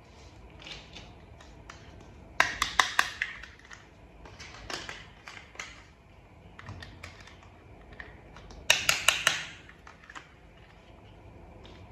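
Small plastic toy parts being handled and clicked together: scattered light clicks, with two quick runs of sharp clicks about two and a half seconds in and again near nine seconds.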